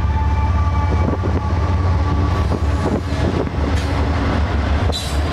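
Train rolling by close at hand: a steady heavy rumble with wheels clicking over rail joints.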